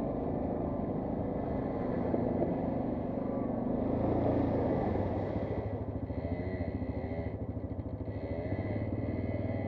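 Quad bike engines running off-road, with the revs rising and falling repeatedly in the second half.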